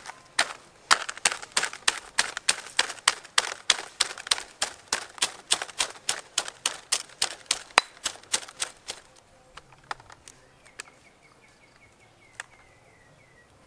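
Stone pestle pounding garlic cloves in a stone mortar: a steady run of sharp knocks at about four strokes a second that stops about nine seconds in. A few light clicks and a faint, rapid high ticking follow near the end.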